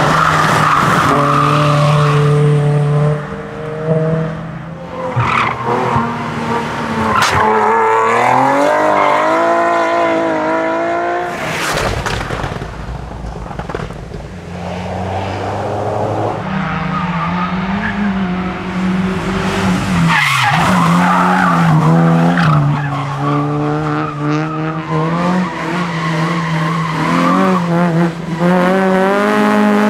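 Rally cars driven hard around a tight track, one after another: engines revving high, the note climbing and dropping with gear changes and lifts through the corners, with tyres squealing.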